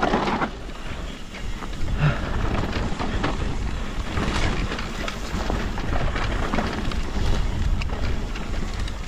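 Mountain bike riding down a dry dirt trail: wind rushing over the action-camera microphone and tyres rolling on the dirt, with scattered knocks and clicks from the bike over bumps.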